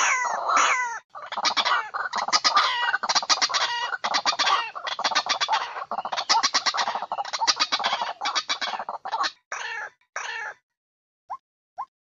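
White-breasted waterhens calling, played as a trapping lure: a dense run of loud, harsh croaking and clucking calls that breaks off about ten and a half seconds in. Near the end come short single notes, about two a second.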